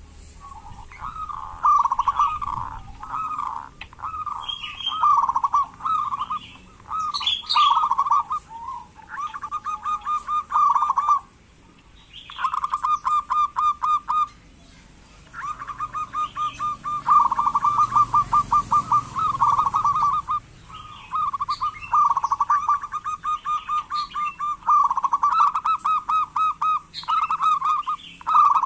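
Zebra dove (perkutut) singing: repeated phrases of fast, rolling, trilled coos at a steady pitch, each lasting one to three seconds with short pauses between. Faint chirps of other small birds come in between the phrases.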